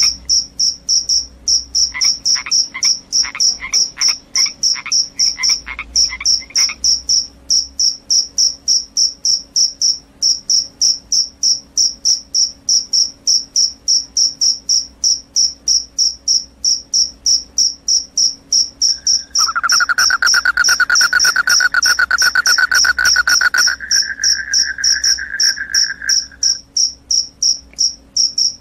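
Crickets chirping in a fast, even rhythm of about three to four high chirps a second. A lower-pitched pulsed call joins early on for a few seconds, and a lower continuous trill sounds for several seconds past the middle.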